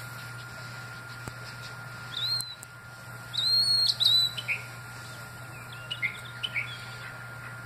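A bird's high, clear whistled calls: a short one about two seconds in, a louder longer held call around three and a half to four seconds, then a run of short falling chirps. A steady low hum runs underneath.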